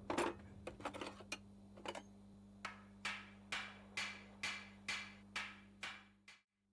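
A few irregular knocks, then a steady run of knocks about two a second that stops suddenly near the end.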